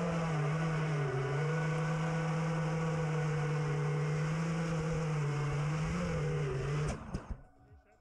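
FPV racing quadcopter's motors and props droning steadily, the pitch dipping briefly a couple of times with throttle, then cutting off abruptly about seven seconds in.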